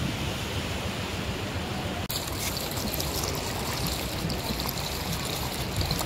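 Sea waves washing on a beach: a steady, noisy wash of surf that changes abruptly about two seconds in.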